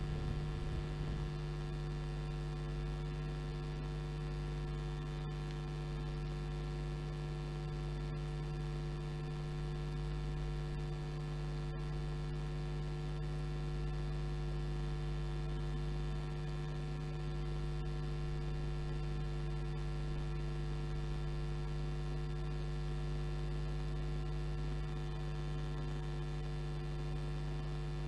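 Steady electrical mains hum in the broadcast audio: a constant buzz with evenly spaced overtones that does not change.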